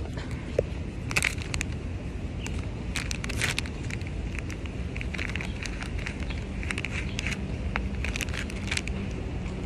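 Packaging being handled while wet wipes are found and used: irregular crackling and rustling over a steady low rumble.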